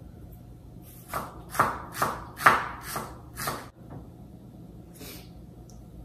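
Kitchen knife slicing a tomato on a wooden cutting board: a run of six cuts, about two a second, starting about a second in, then one fainter cut near the end.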